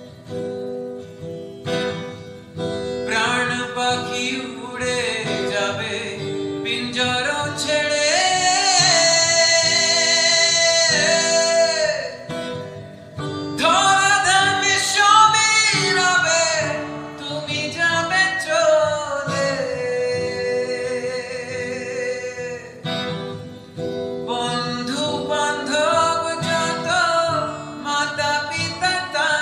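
A man singing to his own acoustic guitar, strumming steady chords under long held, wavering sung notes.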